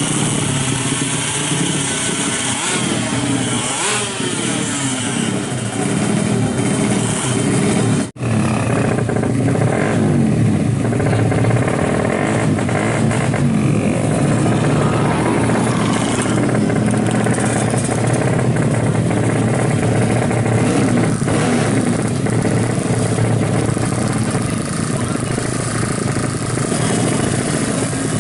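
Honda Astrea drag bike's single-cylinder four-stroke engine running loud through its rusty exhaust, revved up and down over the first few seconds, then held at a steadier speed. The sound cuts out for an instant about eight seconds in.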